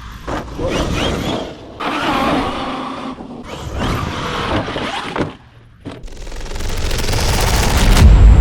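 Short cut-together bursts of large electric RC monster trucks running, with mechanical drivetrain and tyre noise, broken by abrupt cuts. In the last couple of seconds a rising noise swells and cuts off sharply into a deep low hit.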